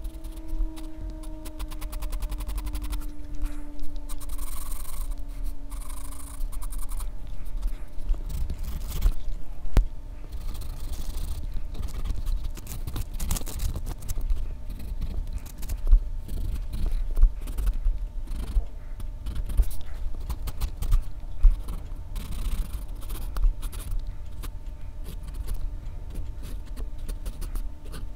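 Graphite pencil scratching and shading on drawing paper in short, uneven strokes, picked up close by a microphone clipped at the drawing wrist, with frequent low rubbing knocks from the hand and wristband.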